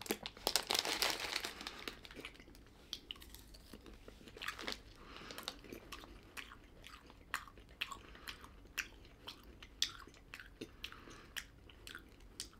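A person chewing a mouthful of crunchy puffed rice snack, with many small crisp crunches that come thickly in the first couple of seconds and then thin out to scattered crackles.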